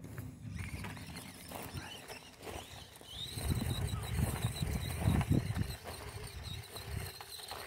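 Footsteps crunching on gravel, heaviest from about three seconds in, over a faint high whine from the Axial SCX24 micro crawler's small electric motor as it drives across the stones.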